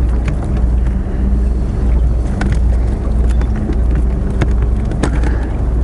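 Small boat's motor running with a steady low hum, with scattered small clicks and knocks over it.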